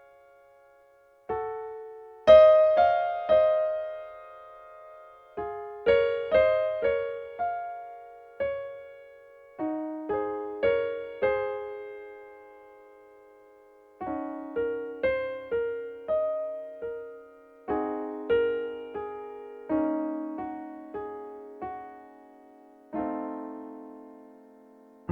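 Yamaha EZ300 keyboard's default piano voice playing a slow melody with chords, in short phrases separated by brief pauses. Each note rings and dies away.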